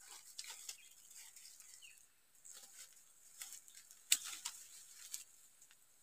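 Dry bamboo leaf litter crackling and rustling in short, irregular bursts as someone steps and crouches in it and reaches into the leaves, with one sharper click about four seconds in.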